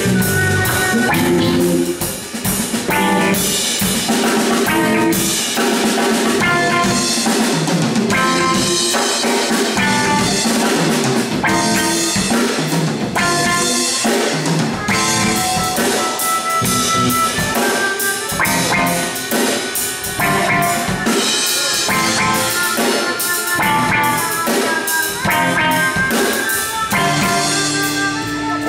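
Live funk fusion band playing an instrumental passage: drum kit, electric bass, electric guitar and keyboard, with a steady drum beat.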